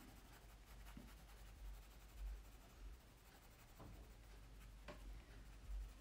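Faint scratching of a pencil held on its side, shading dark tones onto drawing paper, with a few soft taps.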